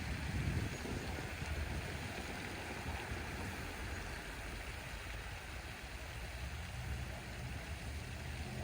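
Wind buffeting the microphone in an uneven low rumble, over a steady outdoor hiss.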